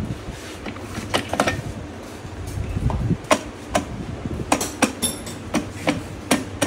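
Sharp metallic clicks and taps, about a dozen at irregular intervals, as small steel gears and parts are handled and set onto the bare aluminium crankcase of a Yamaha R15 M engine during reassembly. A low steady hum runs underneath.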